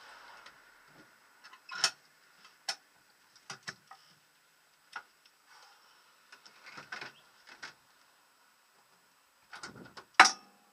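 Scattered clicks and knocks of racing-harness straps and metal buckles being handled in a rally car's cabin, with one sharp, loud knock near the end.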